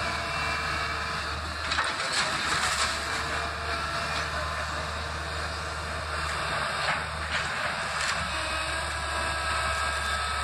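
Kobelco hydraulic excavator's diesel engine running steadily while its bucket tears into a house, with cracks and crashes of breaking wood and debris around two seconds in and again about seven to eight seconds in.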